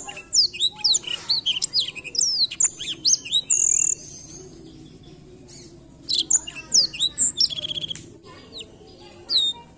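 Blackthroat (black-throated canary) singing fast runs of high chirps and slurred whistles. There are two phrases with a pause of about two seconds between them, then a short note near the end.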